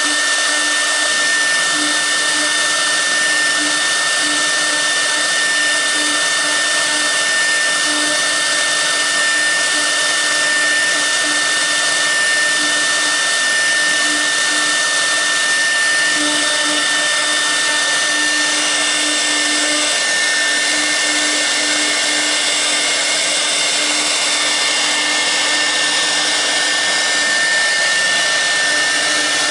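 6 kW air-cooled spindle of a 1325 CNC router running steadily at speed, a constant high whine over a rushing air noise, while a V-bit carves the workpiece.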